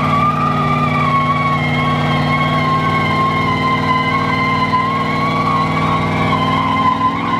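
A car doing a burnout: its engine held at steady revs while the spinning rear tyres squeal with a wavering pitch, both cutting off sharply just after the end.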